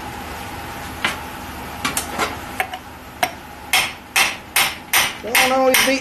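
Hammer tapping on a metal tube held against a piston of a Wilwood four-piston brake caliper, driving the piston down into its bore. A few light scattered taps come first, then steady, harder strikes about two or three a second, the last ones leaving the tube ringing.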